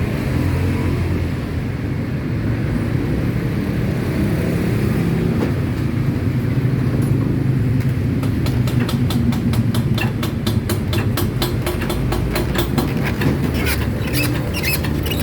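Yamakoyo ZS1130G single-cylinder diesel engine running with a steady low drone. About eight seconds in, a rapid, regular clatter joins it, roughly four to five sharp knocks a second.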